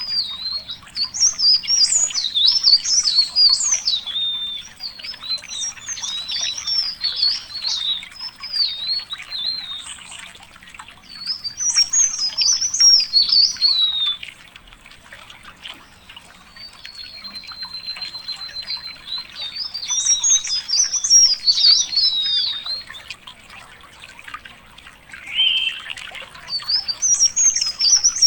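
A songbird singing long, fast, high-pitched warbling phrases of several seconds each, with short pauses between them and a thin, steady held note before one phrase.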